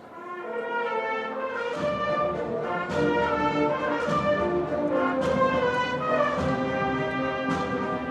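A Seville cornet-and-drum band playing a Holy Week processional march. It opens softly with held brass notes, and about two seconds in the full band and drums come in, with a cymbal or drum stroke roughly once a second.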